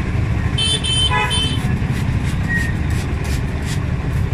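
Steady low rumble of road traffic, with a vehicle horn giving several quick high toots about a second in.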